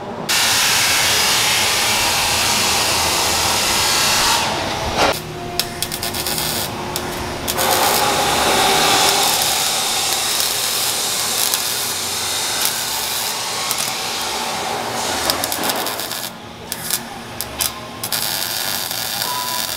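Arc welding on steel exhaust pipe under a truck: a loud, steady crackling hiss as the bead is run, breaking off briefly about five seconds in and stopping and starting several times near the end.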